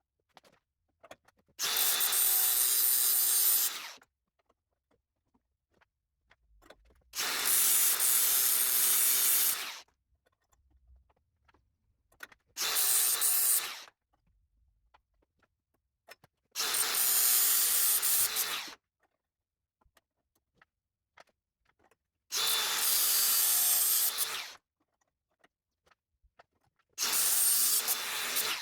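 A handheld electric power tool working the steel repair piece for the door, run in six short bursts of about two seconds each with short pauses between.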